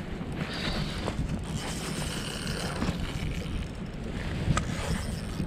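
Wind buffeting the camera microphone, a steady low rumble, with a couple of faint clicks.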